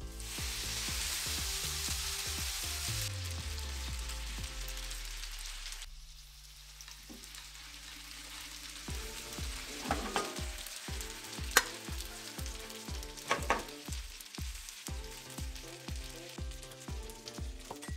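Spaghetti sizzling in hot oil and rendered pancetta in a frying pan, loud for about the first six seconds and then dying down. Tongs toss the pasta after that, with a few sharp clicks against the pan. Background music with a steady beat plays under it.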